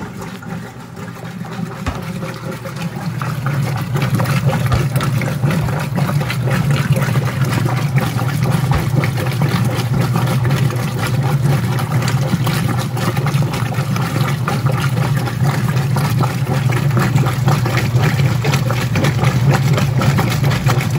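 Whirlpool direct-drive top-load washing machine agitating a tub of water during its rinse: a steady low motor hum with water churning and sloshing. It grows louder over the first few seconds, then holds steady.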